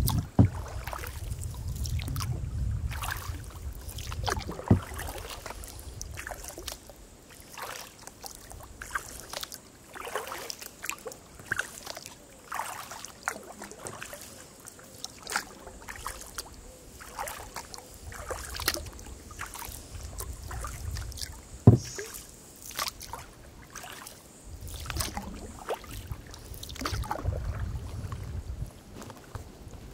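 Kayak paddling on calm river water: paddle blades dipping and splashing with dripping water between strokes. There are a few sharp knocks, the loudest a little past the middle, and a low rumble near the start and again near the end.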